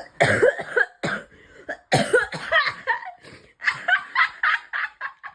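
A girl coughing over and over in quick fits, ending in a rapid string of short coughs about three a second.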